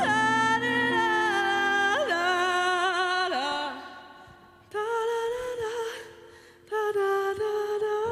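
A singer holding long wordless sung notes with vibrato, nearly unaccompanied, in three drawn-out phrases with short breaks between them.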